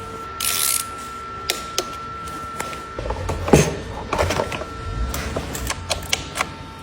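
Handling and unpacking noises: a short hiss about half a second in, then scattered clicks, knocks and dull thuds, heaviest a few seconds in, over a faint steady hum.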